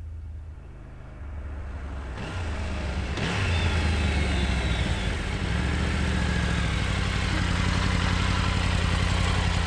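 Triumph Tiger 850 Sport's three-cylinder engine as the motorcycle comes up the lane. It grows louder over the first three or four seconds, with a few brief changes in pitch, then runs steadily at low revs.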